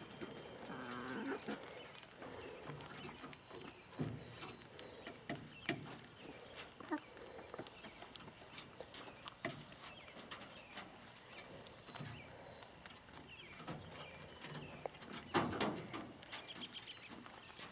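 Laying hens clucking softly now and then, with scattered scratching and rustling, and a louder rustle or knock about 15 seconds in.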